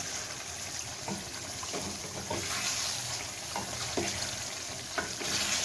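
Water poured into a steel pot of hot, cooking masala gravy, sizzling and bubbling, with a plastic spatula stirring and scraping the pot several times.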